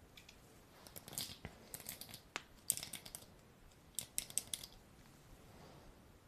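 Hands moving and brushing close to the microphone in ASMR personal attention, giving crisp crackling rustles in four short clusters.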